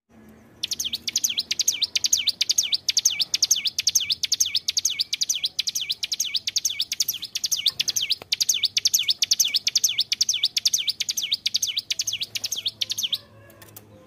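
Ciblek gunung, a prinia, singing a long, fast run of repeated high chirping notes, about five a second, each sweeping up and down in pitch. The song stops abruptly about a second before the end.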